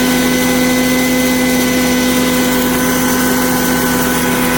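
Electric grain mill running steadily while milling a mix of dry grain. It gives a loud, even hum with a rushing noise over it.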